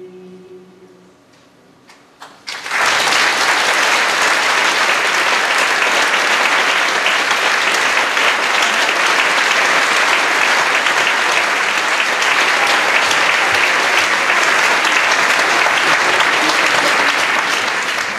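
The choir's last held chord fades out within the first second; about two and a half seconds in, a large audience starts applauding, loud and steady.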